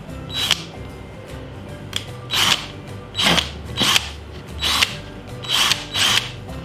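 Parkside PABS 20-Li G8 cordless drill driving a 12 mm screw in about seven short spurts, each lasting well under a second. Background music plays underneath.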